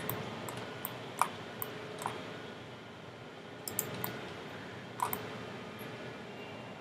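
Scattered single clicks of a computer mouse and keyboard at irregular intervals, about ten in all, over faint room hiss.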